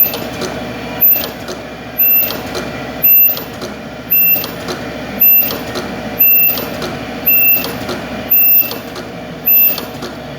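Ultrasonic spot welder firing a series of welds, about nine, one roughly every second, each a short high-pitched buzz over a steady machine hum. Each buzz marks an ultrasonic weld bonding the elastic strap to the mask fabric.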